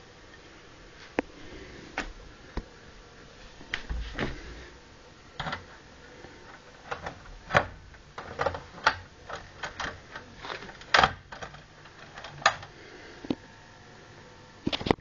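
Irregular series of sharp clicks and light knocks, a dozen or more, coming thickest in the middle and ending with a quick cluster.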